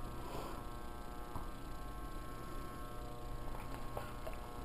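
Faint, steady electric hum, with a few soft clicks.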